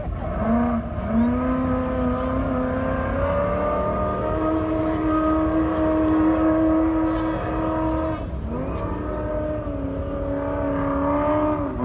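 Off-road race vehicle engine running hard under throttle, its pitch climbing over the first few seconds and then holding high. The pitch drops sharply twice, about eight and a half seconds in and near the end, as the throttle is briefly lifted, then climbs again.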